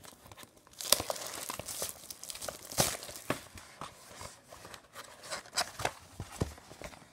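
Plastic shrink wrap being torn and pulled off a cardboard trading-card box by hand: irregular crinkling and crackling broken by sharp snaps of the plastic.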